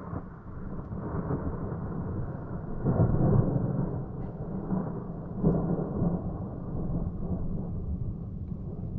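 Thunder rolling from a distant lightning strike: a long, muffled low rumble that swells twice, around three seconds in and again around five and a half seconds in.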